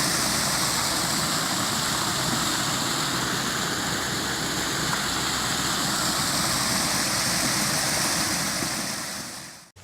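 A small creek's flowing water rushing steadily, then fading out near the end.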